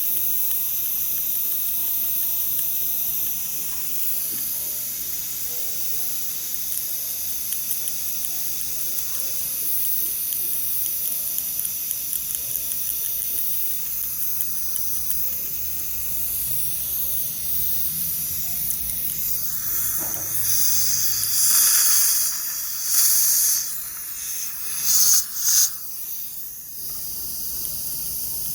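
Dental treatment equipment hissing steadily: suction and the spray of a scaler. Several louder bursts of hiss come in the last third.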